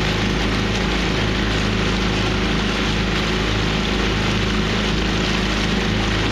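Outboard motor of a coaching launch running steadily at low cruising speed, a constant engine drone.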